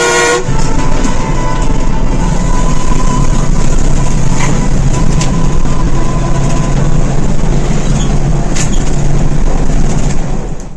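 Intercity bus running fast at night, heard from inside: steady loud engine and road noise. A horn blast cuts off about half a second in.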